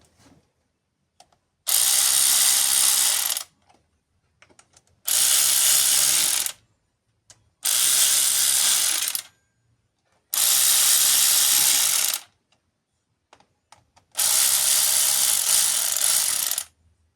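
An electric power tool motor runs in five bursts of about one and a half to two and a half seconds each, with short pauses between them.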